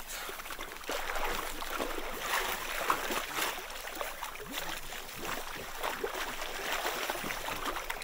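Water splashing and sloshing in a hole in the sea ice as emperor penguins go in and out of it: a busy run of many small, irregular splashes and trickles.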